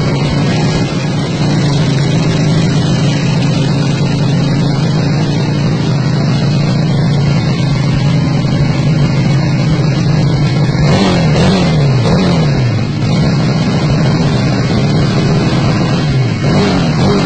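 Two-cylinder engine of a Honda C70 motorcycle running steadily, with a few quick throttle blips about eleven seconds in and once more near the end.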